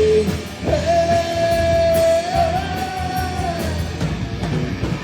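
Live rock band playing with electric guitar and drums, the singer holding one long note for about three seconds.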